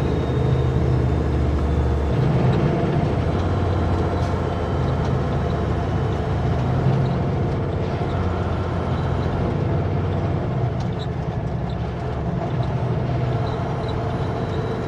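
Kenworth W900L semi-truck descending a highway grade: steady diesel engine drone with road noise.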